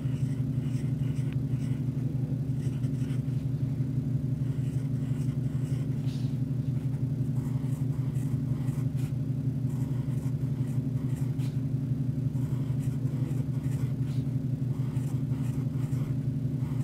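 A steady low hum throughout, with faint scratching of a pencil drawing small curls on paper.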